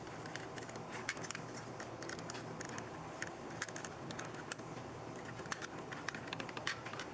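Light, irregular clicks and taps, as of small objects being handled, over faint room hiss.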